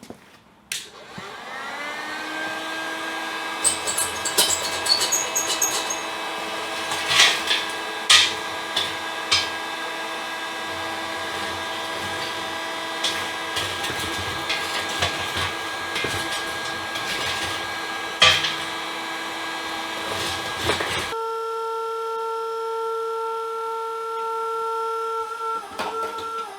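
An electric heat gun's fan motor spins up with a rising whine, then runs at a steady pitch while sharp metal clinks and knocks come over it. Near the end the whine cuts off and a different steady, lower hum takes over.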